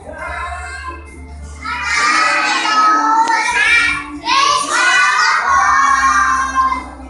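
A group of young children singing together in two loud phrases, starting about two seconds in.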